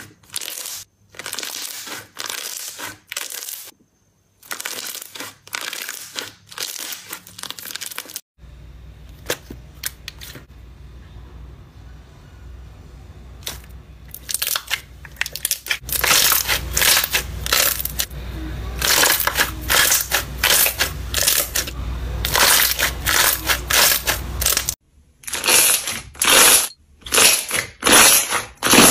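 Crunchy slime squeezed and poked by hand, crackling in short repeated bursts across several clips, with a low hum under the middle clip.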